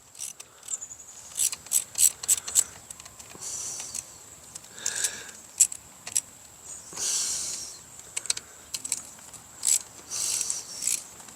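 Hand tools and plastic parts clicking and scraping as small Torx screws are backed out of a two-stroke string trimmer's plastic housing: scattered sharp ticks with a few short scraping rustles.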